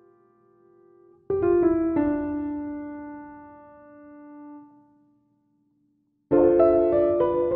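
Background piano music: notes struck about a second in ring out and fade to a brief silence, then a new phrase of notes begins near the end.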